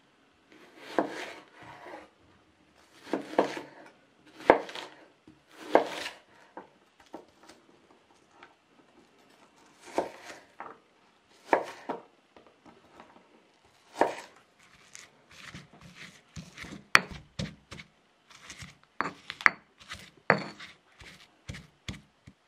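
Knife cutting an onion on a wooden cutting board: separate cuts at an irregular pace, each a short slicing sound ending in a knock of the blade on the board, coming closer together in the second half.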